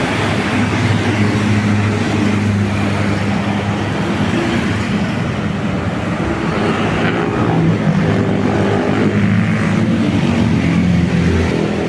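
Large bus engine running close by, over road traffic noise. Its pitch shifts a few times.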